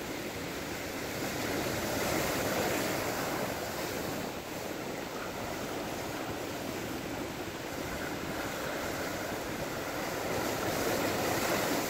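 Ocean surf breaking and washing over rocks, a steady rushing that swells louder about two seconds in and again near the end, with wind buffeting the microphone.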